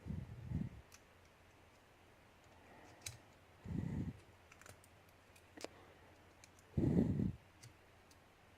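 Handling noise of a small padlock and its lock core worked by hand on a bench: scattered light metallic clicks, with three short dull bumps or rubs at the start, about four seconds in and about seven seconds in.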